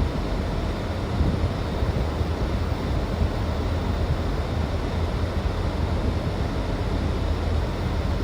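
Steady low rumble of road traffic noise, without a break.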